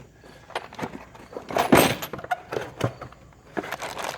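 Tools being handled during an unboxing: a series of light clicks and knocks of metal sockets and plastic tray, loudest about two seconds in and again near three seconds.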